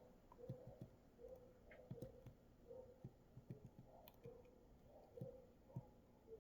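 Near silence: room tone with faint soft clicks, roughly one a second.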